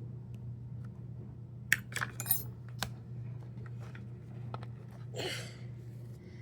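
Sharp plastic clicks and taps as a tool pries at a stubborn plastic cover on a Hoover vacuum cleaner, with a cluster of about five clicks a couple of seconds in and a short rushing scrape near the end, over a steady low hum.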